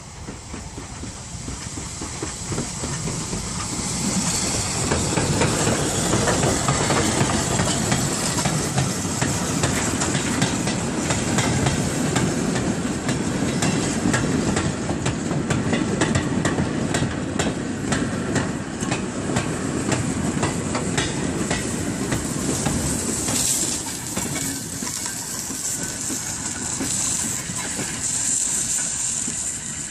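Steam-hauled goods train passing close by. The locomotive draws near and goes past, then a long rake of goods wagons follows, their wheels clattering over the rail joints in a regular clickety-clack. The sound builds over the first few seconds and eases off as the brake van draws away near the end.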